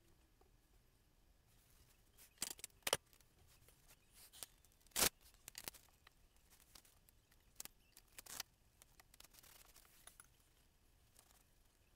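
Masking tape being peeled off the edges of a painted panel: a string of separate sharp crackles and clicks, the loudest about five seconds in, with a fainter rustle near the end.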